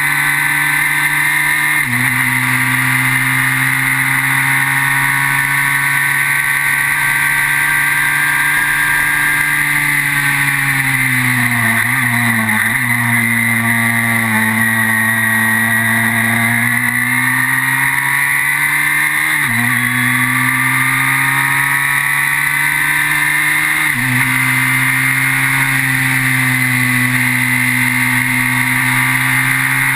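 Formula BMW single-seater's 1.2-litre BMW motorcycle four-cylinder engine running hard on track, heard from the cockpit. Its pitch steps down suddenly on upshifts about 2 s in and twice in the last third, sags and climbs back in the middle as the car slows for a corner and accelerates out, and falls again near the end.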